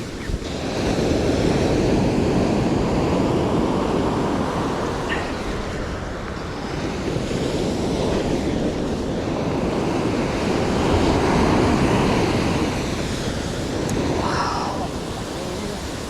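Ocean surf breaking and washing along the shore, swelling and ebbing several times, with wind buffeting the microphone.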